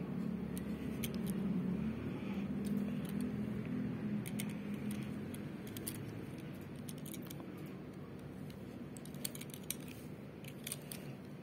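Scattered light clicks and taps of fingers handling a small die-cast metal toy car, a Maserati Levante GTS model, as it is turned over in the hand. The clicks come more often in the second half. Under them is a low hum that fades after the first few seconds.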